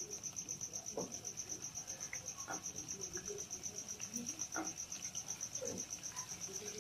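A high insect trill pulsing about nine times a second, with a few faint soft knocks as sweet-potato dough balls go into hot oil.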